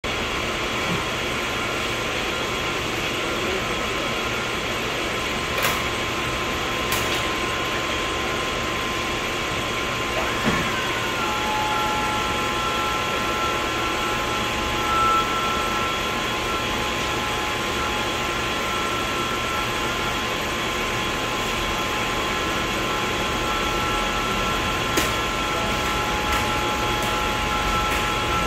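Battery-powered electric stacker's lift motor and hydraulic pump running with a steady hum. About ten seconds in, the pitch dips and settles into a new steady tone, with a few sharp clicks.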